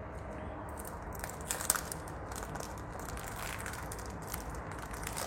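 Crinkling and rustling of packaging with a string of small clicks and one sharper click about a second and a half in, as a Zippo lighter and its box are handled.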